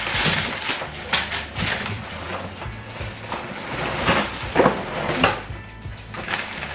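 Plastic shopping bags rustling and groceries knocking and clattering as they are unpacked from a wheeled shopping trolley.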